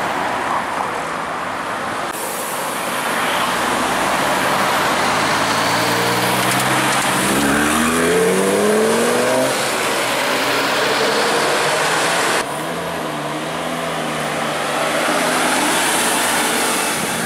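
Lamborghini Gallardo Spyder's V10 engine accelerating, its note climbing steadily through the revs, then running at low revs after about twelve seconds. The first two seconds are road traffic as other vehicles pull away.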